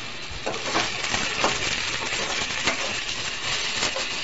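Chopped potato, onion and capsicum frying in oil in a kadhai: a steady sizzle with a few scraping clinks of a spatula against the pan.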